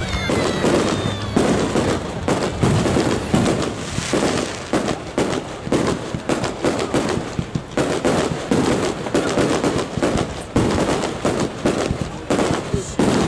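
Aerial fireworks display: a dense, unbroken barrage of shell bursts and crackling reports, several a second.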